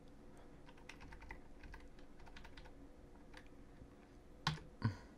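Faint computer keyboard keystrokes, irregular clicks picked up by the microphone, with two louder short sounds near the end.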